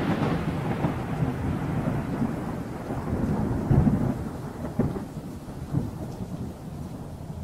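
Rumbling, crackling tail of an explosion sound effect, dying away and fading out gradually.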